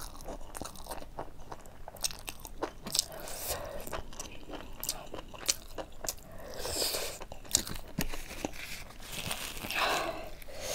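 Close-miked chewing of a handful of rice and buffalo meat curry, with wet mouth clicks and crunches, and a few louder breaths, the loudest about ten seconds in.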